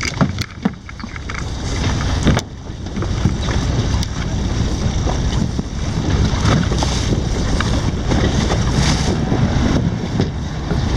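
Wind buffeting the microphone aboard a fishing boat at sea, a steady dense rush with boat and water noise underneath. A few sharp clicks come in the first second.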